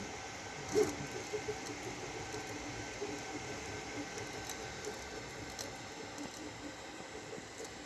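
3D printer running, its stepper motors giving short whirring moves that shift in pitch, with a click about a second in.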